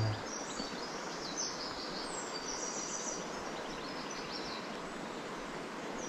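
Steady rush of a small river running high after rain, with birds chirping over it.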